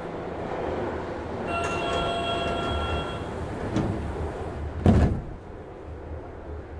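Tokyu 8500 series commuter train standing with its doors open: a steady electronic warning tone sounds for almost two seconds, then the sliding doors bang shut about five seconds in, over the car's low steady hum.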